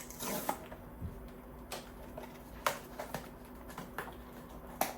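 Scattered light clicks and short rustles of a small cardboard blind box and its packaging being handled and opened.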